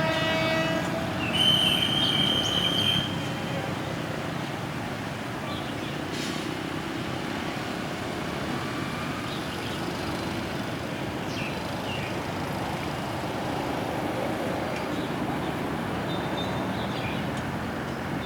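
Diesel locomotive of a freight train idling steadily while it stands waiting at a station. A brief high, steady whistle-like tone sounds about a second in and lasts under two seconds; it is the loudest sound.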